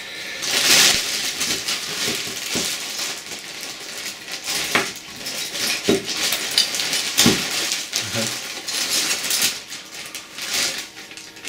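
Rummaging through a bag of spare cassette-deck drive belts and small parts: rustling with scattered light clicks and clinks.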